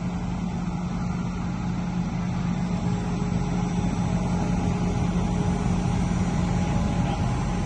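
Engine of a load-carrying machine running steadily as it creeps forward with a load on its lift, a constant low drone that grows slightly louder partway through.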